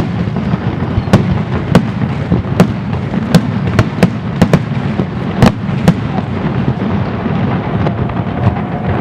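Fireworks display: aerial shells bursting in quick succession, a dozen or so sharp bangs over a continuous low rumble of overlapping booms.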